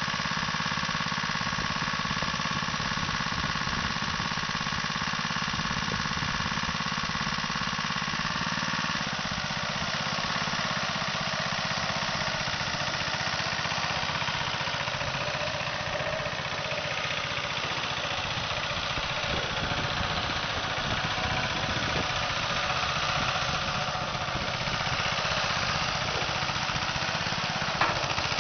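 Small petrol engine of a tracked high-tip mini dumper running steadily while the skip is raised and tipped. The engine note changes slightly about nine seconds in. A couple of sharp clicks come near the end.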